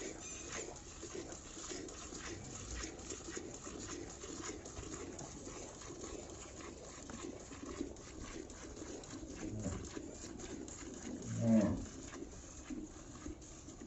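Hand-milking a Rathi cow: short, even squirts of milk striking the pail, one after another. About two-thirds of the way through comes one brief, low animal call, the loudest sound here.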